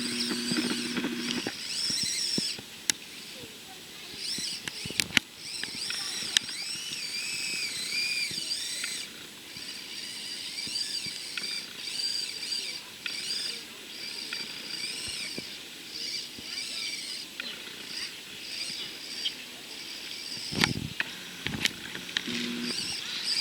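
Small brushed electric motor and gears of an Axial SCX24 1/24-scale RC crawler whining in short stop-start bursts, rising and falling in pitch as the throttle is worked. There are a few sharp clicks and knocks as it climbs over rock.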